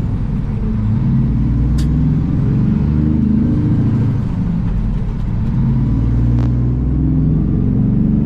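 Heavy truck engine heard from inside the cab, pulling through traffic, its pitch rising and falling several times as it works up through the gears. Two short clicks sound in between.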